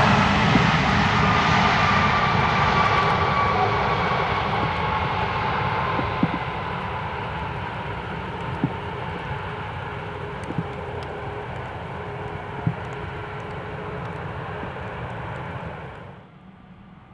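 Airbus A321neo jet airliner rolling out after landing on a wet runway: loud jet engine noise with a whine that slides slowly down in pitch as the engines spool down, fading as the aircraft slows and moves away. Near the end it drops off abruptly to a much quieter background.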